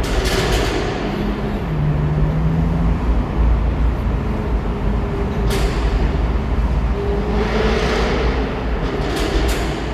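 Jaguar F-Type V8 on the move: a steady low engine drone under road rumble, its pitch stepping down a little about two seconds in, with several short hissing swells along the way.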